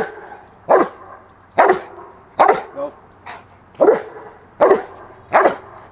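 Cane Corso barking on cue: a run of about seven loud, sharp barks just under a second apart, with a slightly longer gap near the middle.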